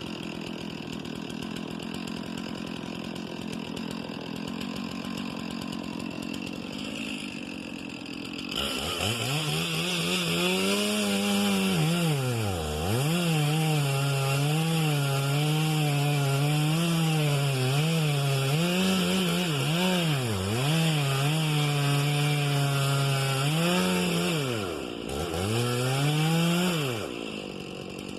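Chainsaw idling, then run hard at high revs from about eight seconds in while felling a cedar, its engine pitch dipping and recovering over and over. It drops back to a lower level near the end.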